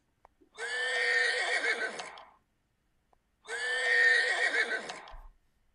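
Horse neighing twice, each whinny lasting about two seconds, with a pause of about a second between them.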